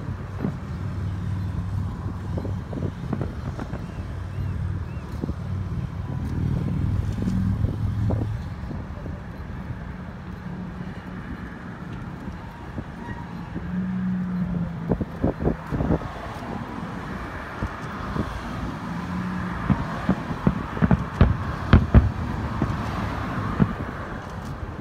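Fireworks going off: a few sharp bangs about two-thirds of the way in, then a rapid string of bangs in the last five seconds. Under them a steady hum of road traffic, strongest in the first third.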